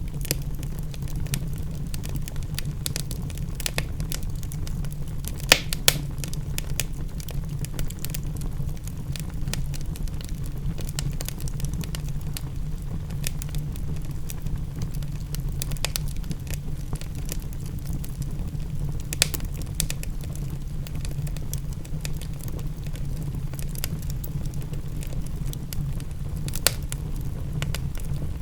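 Wood fire crackling with frequent small pops and a few louder snaps, over a steady low rumble and hiss of rain.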